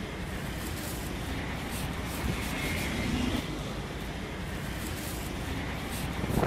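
Steady street noise with a low traffic rumble.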